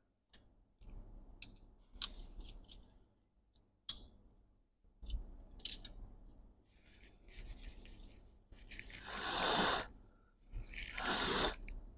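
Small clicks and taps as a laptop logic board and its small parts are handled on a bench, then rustling, scraping noises, the two loudest about nine and eleven seconds in.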